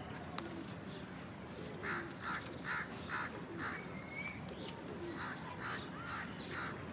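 Birds calling in two series of short, evenly spaced calls: four in a row about two seconds in, then several more about five seconds in.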